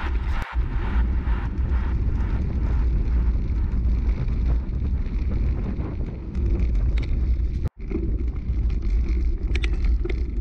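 Wind buffeting a camera microphone during a mountain-bike ride, a heavy ragged rumble with light clicks and rattles from the bike and trail. The sound drops out for an instant twice, about half a second in and about three quarters of the way through.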